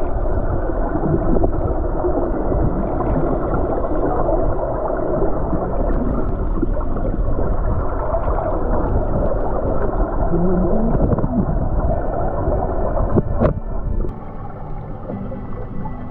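Muffled underwater sound picked up by a submerged camera: a steady dull rumble and gurgle of moving water. A sharp click comes about thirteen seconds in, and the noise grows quieter just after.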